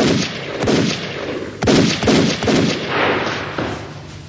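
A burst of gunshots: about six sharp shots in quick succession over some three seconds, each with an echoing tail, dying away toward the end.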